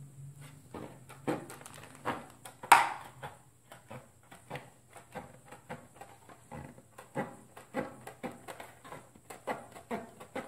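Serrated tin snips cutting through a white ABS plastic armor piece: a steady run of short, sharp snips, about one to two a second, with one louder snip a little under three seconds in.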